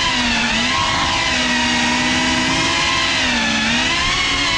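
GEPRC Cinelog 35 cinewhoop drone's brushless motors and propellers whining steadily, the pitch dipping and rising as the throttle changes.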